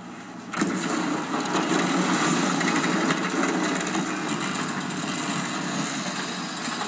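A shrimp boat's engine running as the unmanned boat motors close past, with water churning in its wake, heard through a television speaker. It comes in suddenly about half a second in and then holds steady.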